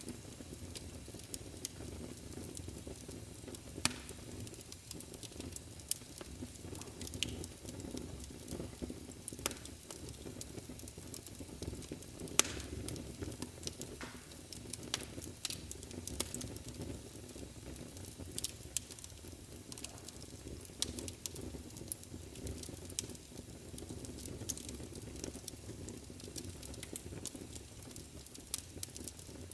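Wood fire burning in a fireplace: a steady low rumble of the flames with irregular sharp crackles and pops, a few of them louder, about 4, 6 and 12 seconds in.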